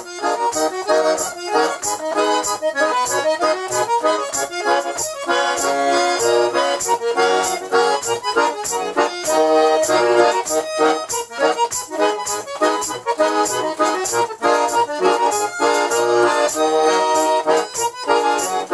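Garmon (Russian button accordion) playing the instrumental introduction to a folk-style song: full chords and a melody over a steady beat.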